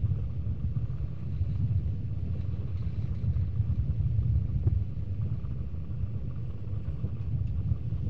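A boat's engine running, a steady low rumble.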